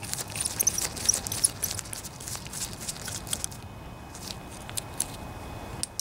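Screwdriver backing out the idle adjustment screw of a small-engine carburetor: a quick run of small metallic clicks and faint high squeaks in the first couple of seconds, then scattered ticks as the carburetor is handled.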